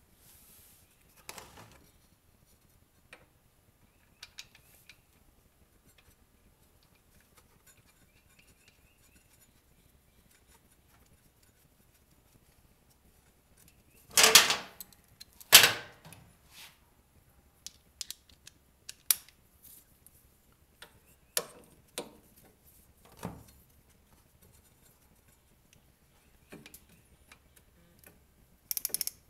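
Scattered metallic clinks and clatter of hand tools, with two loud clattering knocks about halfway through. Near the end a socket ratchet starts clicking as the wrench is worked on the transmission drain plug.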